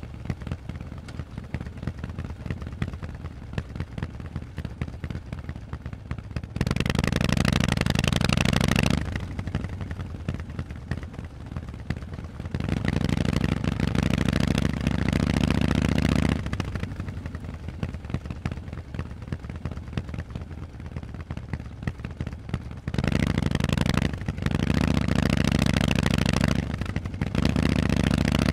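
Harley-Davidson Forty-Eight's air-cooled V-twin running through Vance & Hines exhausts. It runs at low throttle at first, then the throttle is opened several times: a few seconds of louder pull about a quarter of the way in, again around the middle, and again near the end, broken by short dips.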